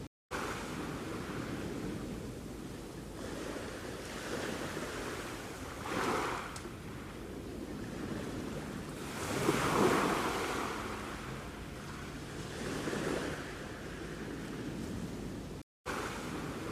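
Sea waves washing on the shore: a steady rush with swells about six, ten and thirteen seconds in, the loudest near ten seconds. The sound cuts out to silence for a moment twice, just after the start and near the end.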